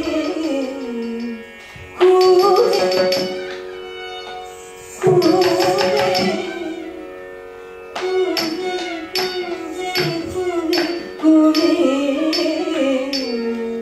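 Carnatic classical music for Bharatanatyam dance. A steady drone sounds under a melody that slides between notes, with sharp percussion strokes and loud accents about two, five and eleven seconds in.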